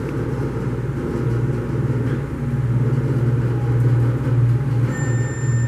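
Schindler-installed MEI hydraulic elevator travelling up, a steady low hum from its running pump motor heard inside the cab.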